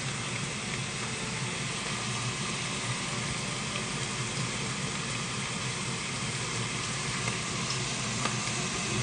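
Raw prawns frying in hot oil with chopped shallots in a stainless steel pan: a steady sizzle with a few faint crackles.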